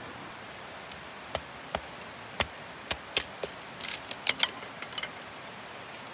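Dry split kindling clicking and tapping as it is shaved with a knife and stood up around a tinder bundle: about a dozen sharp taps scattered through the first four and a half seconds or so, over a faint steady hiss.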